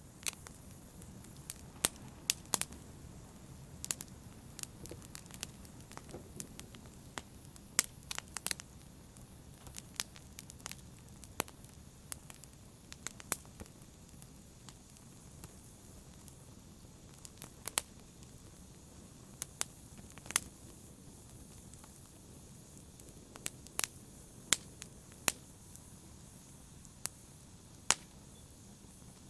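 Fire burning in a fireplace: a steady low rumble of flames broken by sharp, irregular crackles and pops.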